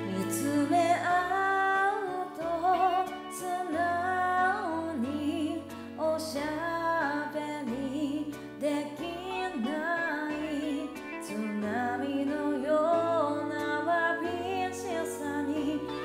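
A woman singing a slow Japanese pop ballad along to a karaoke backing track, her voice wavering with vibrato over a stepping bass line.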